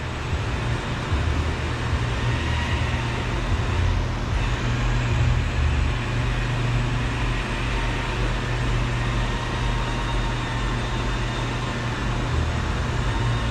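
Steady low rumble of vehicle noise, with no distinct clicks or knocks.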